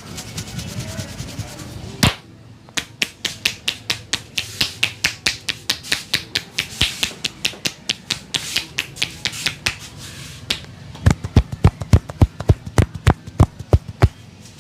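A barber's hands striking a head in a percussive head massage. There is one sharp smack, then quick, regular slaps at about five a second. Near the end a louder, deeper run of claps follows at about four a second.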